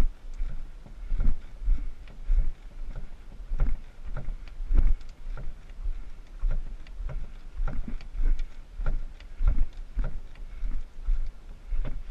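Footsteps on a rocky dirt portage trail, heard from under a canoe carried overhead: a steady walking rhythm of dull thuds, about one and a half to two a second, with the hull and its load knocking lightly with each step.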